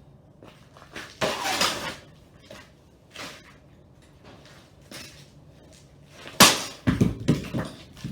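Clattering knocks and scrapes from the wrecked PC case and its broken pieces being handled: a scraping clatter about a second in, a few light knocks, then a sharp bang followed by a rattling burst of clatter near the end.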